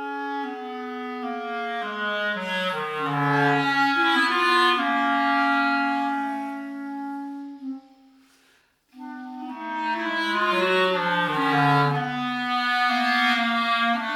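Clarinet music: slow sustained notes in two swelling phrases. The first fades out about eight seconds in, and after a short pause the second begins about nine seconds in.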